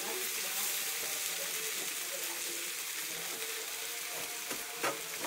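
Grated raw potato frying in a hot cast-iron skillet: a steady hiss, with one short knock near the end.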